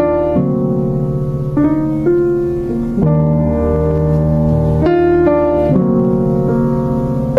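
Background music: sustained electric-piano or keyboard chords changing every second or two.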